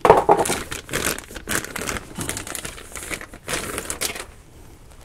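Clear plastic packaging bag crinkling and rustling as a new sway bar end link is pulled out of it and handled, in irregular crackles. It is loudest right at the start and dies down after about four seconds.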